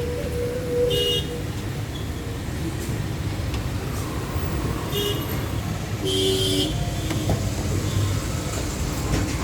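Steady road-traffic rumble with vehicle horns tooting several times: one held for about a second at the start, a short one about five seconds in, and a longer two-tone one about six seconds in.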